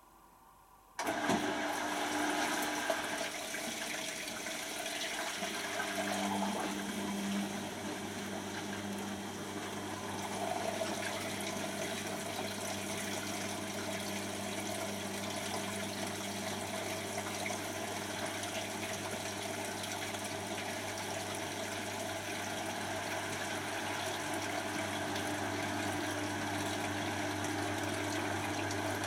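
Beko WTB741R2A washing machine drum motor starting with a click about a second in, then running steadily as the drum turns the wet load, with a steady low hum under it.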